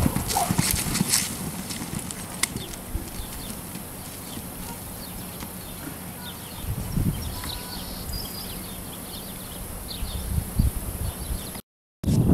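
Quarter horse's hoofbeats on a soft dirt arena, loud at first and then fainter as the horse runs off across the pen. After a brief dropout near the end, hooves sound close by again.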